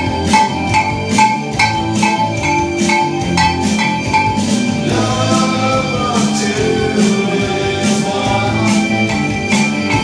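Music with a repeating metallic percussion hit, about three strikes a second, each with a short ring, over other instruments; a wavering melody line comes in about halfway.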